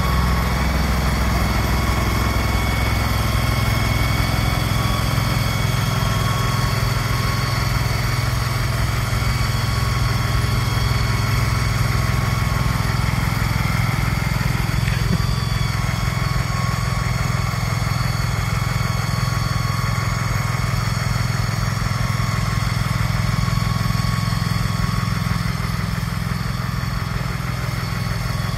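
Small engine of a tracked shed mover running steadily under load while it pushes a large shed, with a steady whine over the engine note.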